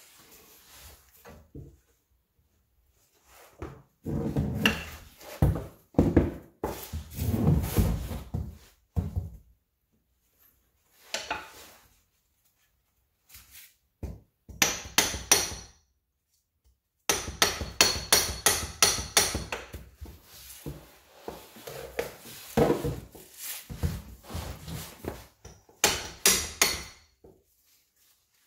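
A hammer strikes a wedge-type axle popper tool driven between the CV axle's inner joint and the L3 transmission case, knocking a stuck driver-side axle loose. From about halfway through the blows come in quick runs of several a second with a metallic ring, after duller knocks and shuffling earlier.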